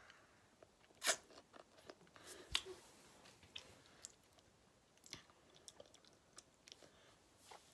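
Faint mouth sounds of someone eating a sour hard lollipop: scattered soft clicks and smacks, the loudest about a second in.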